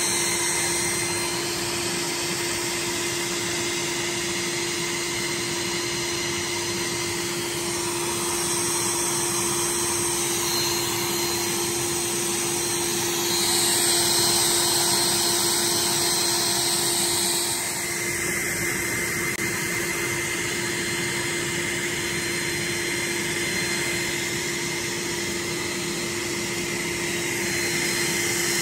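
Steady whirring hiss of a running electric motor or blower, with a constant low hum under it. The hiss grows louder and brighter for a few seconds about halfway through.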